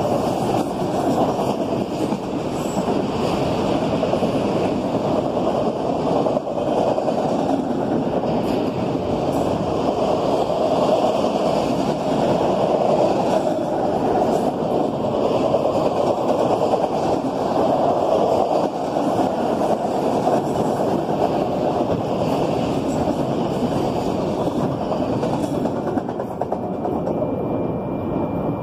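Freight cars of a manifest train rolling steadily past, steel wheels running on the rails. The sound thins near the end as the last cars clear.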